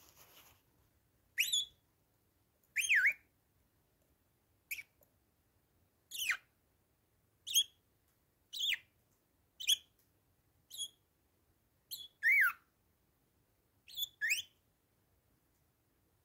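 Bourke's parakeets calling: about a dozen short chirps, each a quick sliding whistle, spaced a second or so apart.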